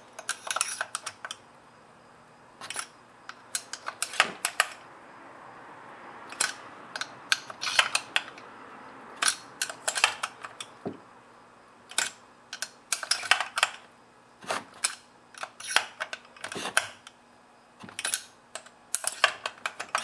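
Torx screwdriver turning and tightening the cylinder bolts on a Stihl MS260 chainsaw: irregular sharp metallic clicks and ticks, coming in short clusters as the bolts are worked in turn.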